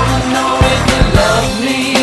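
Pop-rock song with a steady drum beat and a singing voice.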